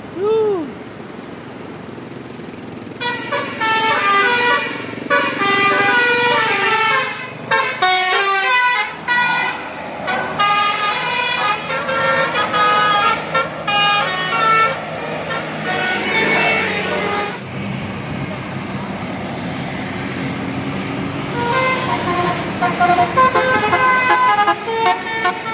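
Road traffic with vehicle horns honking over and over in short, uneven toots, above a steady hum of engines.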